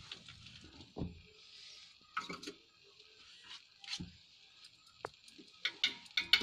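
A spatula scraping and knocking now and then against a pan of cooking grated carrot halwa, over a faint steady sizzle. The knocks come singly at first and bunch together near the end.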